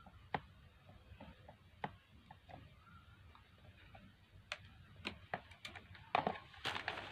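Scattered small clicks and taps from handling a blender motor's carbon brush and its holder. A few isolated ones come early, then they come quicker and louder near the end.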